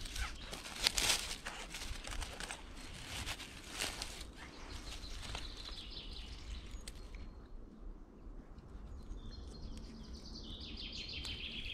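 Dry leaf litter rustling and crackling in short bursts as a false morel is cut with a knife and lifted from the forest floor, mostly in the first few seconds. A bird sings in the background twice in the second half.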